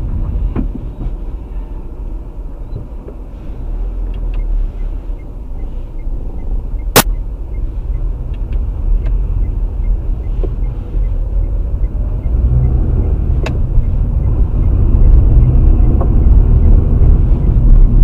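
Steady road and engine rumble inside a car driving on a wet highway, heard through a dashcam's microphone, growing louder in the second half. A sharp click about seven seconds in and a weaker one later.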